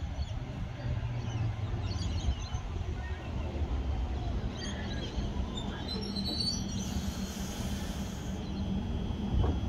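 Double-deck electric suburban train running into a station platform and rolling past close by with a steady low rumble and motor hum. Birds chirp faintly over it.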